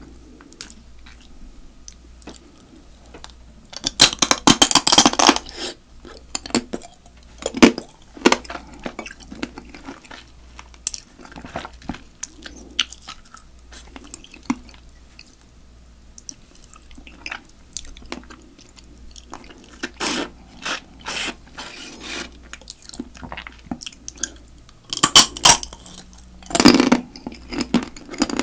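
Close-miked eating of spicy marinated raw crab: teeth crunching and cracking the crab's claw-leg shells, with wet chewing in between. The loudest bursts of crunching come about four seconds in and again near the end.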